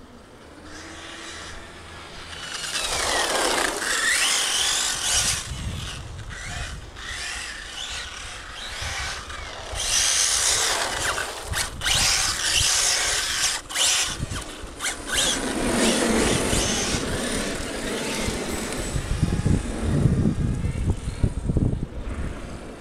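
Radio-controlled car running across asphalt: its motor whines up and down in pitch and its tyres rumble, the sound swelling and fading several times as it passes close and drives away.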